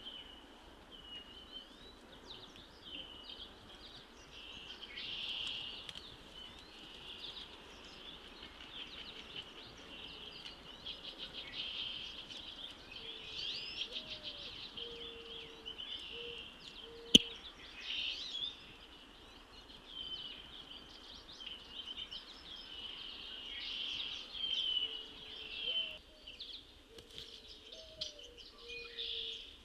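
Outdoor chorus of songbirds: many overlapping high chirps, trills and quick up-and-down whistled notes, with a few short lower notes in runs now and then. One sharp click about halfway through.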